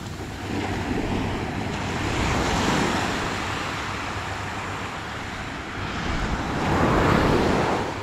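Small sea waves breaking and washing up the sand at the water's edge, the surf swelling twice, about two seconds in and again near the end, with wind rumbling on the microphone.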